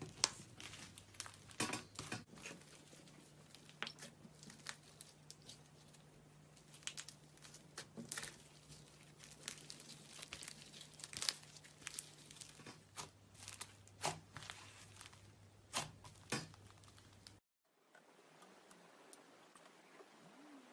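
Slime being handled by hand close to the microphone, crackling and crinkling with irregular sharp little clicks and pops. It cuts out briefly near the end, then quieter clicking goes on.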